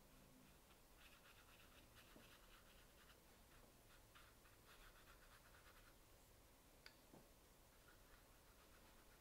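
Faint, soft scratching of a watercolor brush stroking over textured watercolor paper: runs of short, quick strokes, then a pause broken by a single small click.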